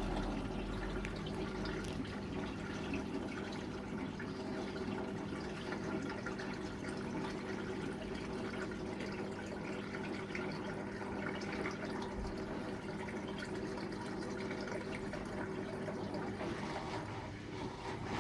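Beko 7 kg washing machine's drain pump running in its test-mode drain step: a steady electric hum with water running through it.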